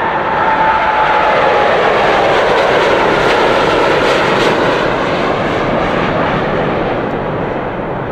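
Boeing 787 Dreamliner's twin turbofan engines at takeoff thrust as the jet rolls, lifts off and climbs away. There is a steady loud roar with a whine that drops slightly in pitch over the first couple of seconds, and the roar eases off near the end as the aircraft gains height.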